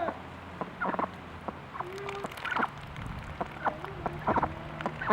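Domestic duck quacking: a string of short, irregularly spaced quacks, the loudest one at the end.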